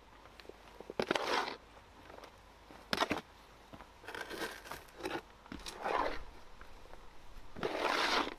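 Dry fallen leaves and twigs crunching and crackling as they are handled, in several short bursts, with a sharp snap about three seconds in.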